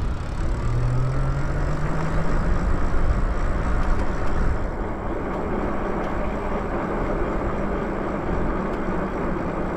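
Wind and road noise while riding a Lyric Graffiti electric bike along a paved street: a steady, heavy rush, with a humming tone rising in pitch over the first two seconds or so.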